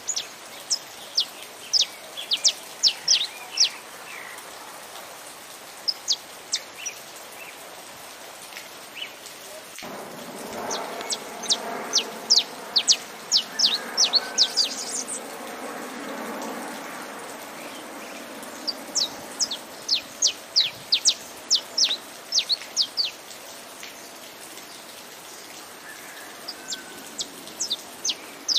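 Saffron finch singing in phrases of quick, sharp high chirps, several times with pauses between, over a steady hiss of rain. A fainter, lower sound joins in briefly in the middle.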